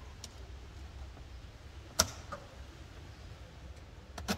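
Sharp clicks of busbars being fitted onto the terminal studs of a Ford C-Max lithium cell bank: one loud click about two seconds in, a fainter one just after, and a quick pair near the end, over a low steady hum.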